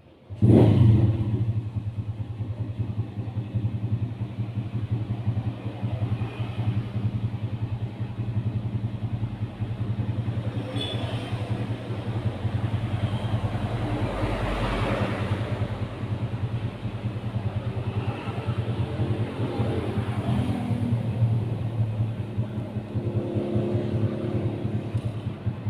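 An engine running steadily, starting abruptly about half a second in, with a steady low hum.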